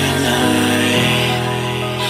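Background music with sustained notes; the chord changes about a second in.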